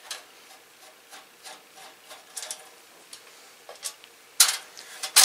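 A screwdriver turning out a small screw from a computer case's expansion-slot cover, a series of short scraping clicks, followed by two louder metallic clacks near the end as the metal parts are handled.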